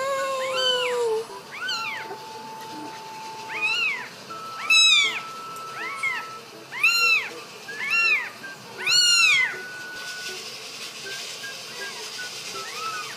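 Newborn kitten mewing repeatedly in short, high-pitched cries, about one a second, each rising and falling in pitch. The cries stop about ten seconds in.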